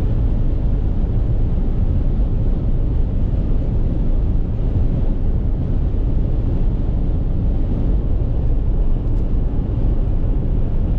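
Steady road and engine noise heard from inside a moving car, a low, even rumble.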